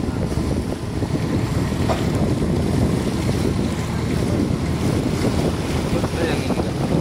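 Wind buffeting the microphone, and water rushing and splashing along the hull of a small boat moving across the sea. The noise is steady and loud, heavy in the low end.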